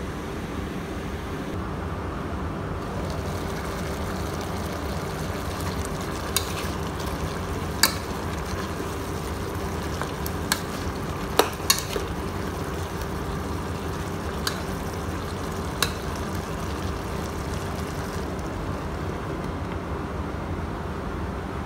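Metal spoon stirring chicken pieces in a stainless steel cooking pot, with about seven sharp clinks against the pot scattered through the middle of the clip. Underneath is a steady cooking sizzle and hum from the pot on the induction cooker.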